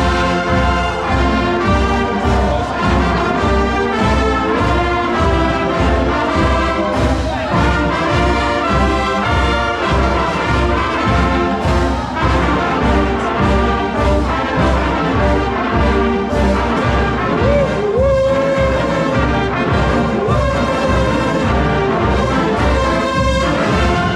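Brass-heavy music with a steady bass-drum beat, about two beats a second.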